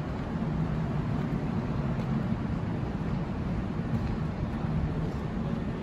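CAF Urbos tram giving off a steady low hum and rumble beside the platform, even throughout with no rise or fall.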